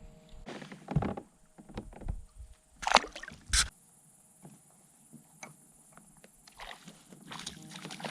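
Knocks and handling noise in a small fishing boat, with some water sloshing: a few sharp knocks, the loudest about three seconds in, then scattered small clicks.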